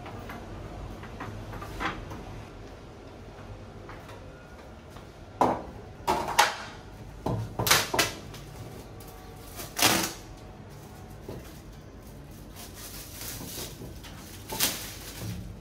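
Wooden easel being set up: a series of sharp wooden knocks and clatters, the loudest cluster about five to ten seconds in. Near the end, plastic film crinkles as it is peeled off a canvas.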